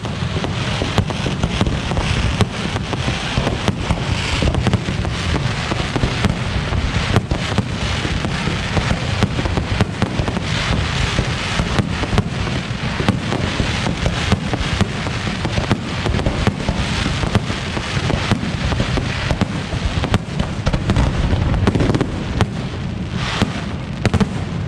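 Aerial fireworks display going off without pause: a dense barrage of rapid, overlapping bangs and crackling over deep booms.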